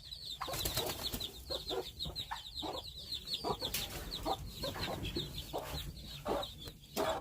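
Mother hen clucking low and short among her chicks, which peep fast and high without a break.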